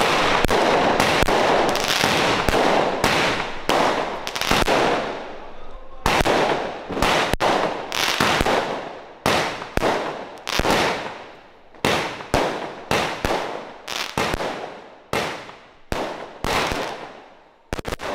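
A 20-shot firework cake firing: a rapid string of loud bangs from shots and their bursts overhead. The bangs run close together for the first few seconds, then come as separate bangs about two a second, each trailing off.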